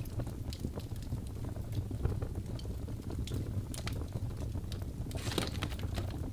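Wood logs burning in a fireplace, crackling with irregular sharp pops over a low steady rumble of the flames, with a brief denser run of crackles about five seconds in.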